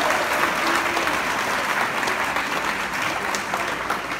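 Audience applauding, a dense patter of many hands clapping that slowly tapers off.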